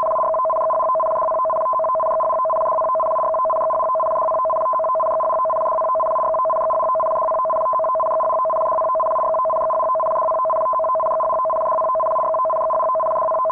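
Two-tone Emergency Alert System attention signal: two steady pitches sounding together, loud and unchanging, with no break.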